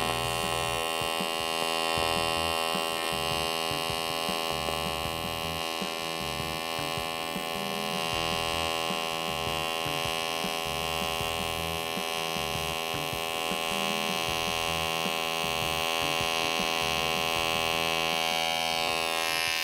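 AC TIG welding arc on aluminium, struck from a Teamwelder TIG 180 AC/DC inverter welder, burning without a break with a steady electric buzz.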